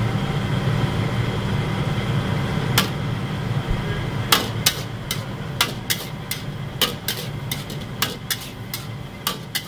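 A metal wok ladle clanking and scraping against a wok while fried rice is stir-fried, starting about three seconds in and then striking about twice a second. Under it, the steady low rumble of the wok's gas burner.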